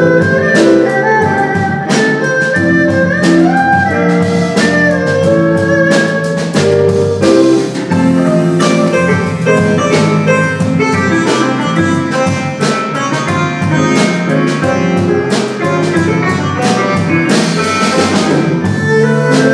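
Instrumental jazz band music: a melody with held notes over chords, with drums keeping time.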